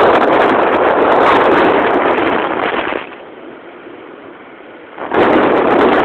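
Heavy wind buffeting the microphone on a moving motorcycle. It drops away for about two seconds midway, then comes back suddenly.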